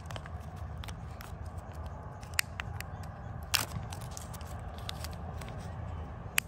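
Thin foil lid being peeled off a plastic candy cup, with scattered crinkles and clicks of foil and plastic and three sharper clicks, over a steady low background rumble.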